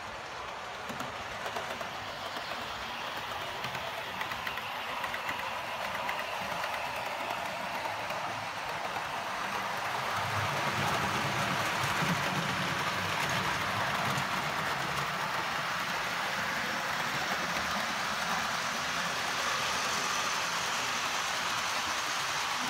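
00 gauge model trains running on the layout's track: a steady rattling clatter of small wheels on rail with a motor whir, getting louder about ten seconds in as the trains pass close by.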